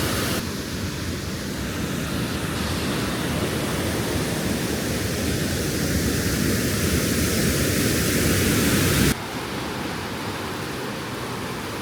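Water rushing under pressure through a canal lock gate, a steady, dense noise. About nine seconds in it drops in level and loses much of its deep rumble.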